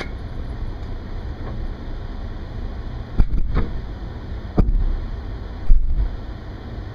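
Steady low rumble of an idling vehicle engine, broken by three short low thumps about a second apart in the second half.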